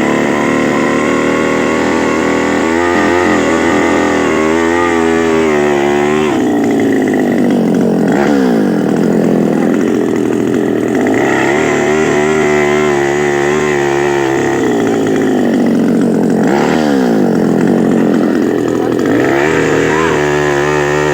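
The two-stroke engine of an 82cc power earth auger running hard. Its speed drops sharply and picks up again twice, about 8 and 16 seconds in.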